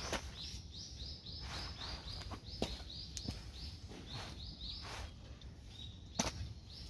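A small songbird calling a quick series of short high notes, about three a second, pausing near the end and starting again, over scattered sharp taps.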